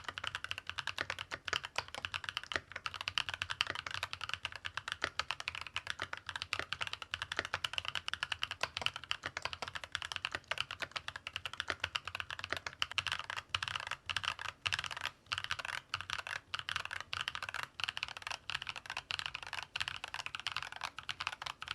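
Keychron K10 Pro SE mechanical keyboard with lubed banana (light tactile) switches being typed on continuously, a rapid rolling patter of key clacks.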